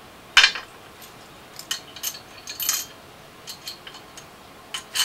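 Metal clinks and taps from a Pit Bull rear motorcycle stand's spool top and bolt being handled and fitted onto the stand's upright: one sharp clink about half a second in, then a scattering of lighter clicks and clinks, one with a brief high ring.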